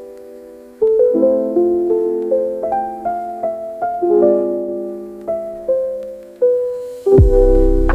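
Background music: a gentle piano melody of struck notes that ring and fade, with a deep bass note coming in about seven seconds in.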